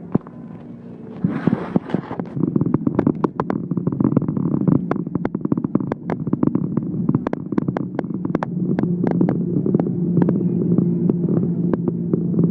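A car on the move heard from inside the cabin: a steady engine and road hum with frequent short clicks and rattles, and a brief rush of noise about a second in.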